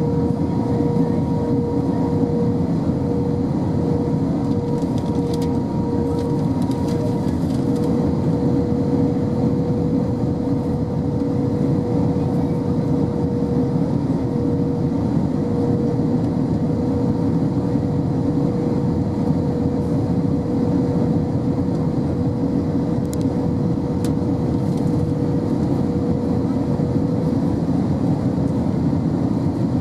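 Steady cabin noise of an Airbus A321 on final approach with flaps extended: the rush of engines and airflow, with a steady whine running through it.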